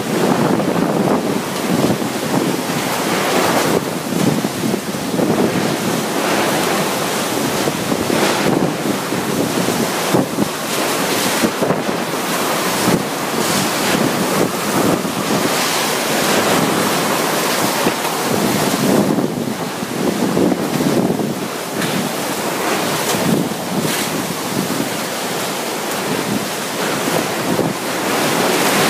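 Wind of Super Typhoon Yolanda (Haiyan) at landfall, blowing hard and unbroken with driving rain. It surges and eases in gusts every few seconds, with wind buffeting the microphone.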